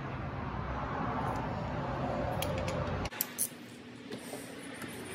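Steady shop background noise for about three seconds, then it cuts off abruptly and a few light metallic clicks follow as a socket and extension are handled onto an engine bolt.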